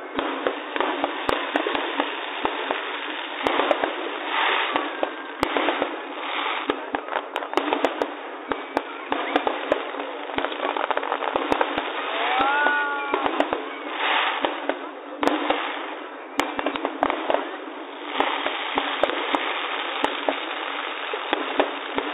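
Fireworks going off: many sharp bangs and pops of bursting shells in quick, irregular succession over a constant crackle, heard thin with no deep boom.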